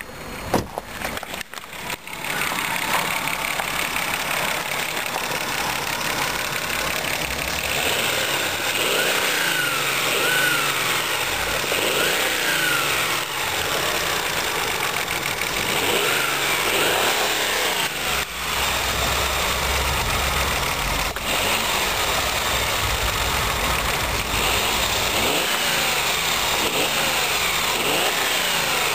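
Mazda KF V6 engine starting, catching about two seconds in, then running steadily with a knock from the near cylinder head.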